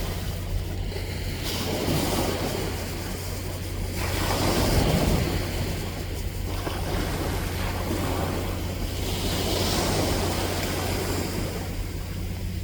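Ocean waves washing onto the shore, the surf swelling and easing every few seconds, with a steady low rumble of wind on the microphone.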